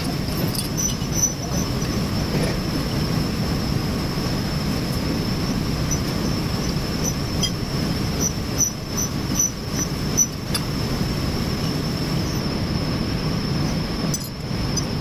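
Steady rumble of workshop machinery with a thin high whine over it. A few light metallic clinks come through, mostly in the latter half, as steel strap clamps are set and tightened with a spanner on a milling machine table.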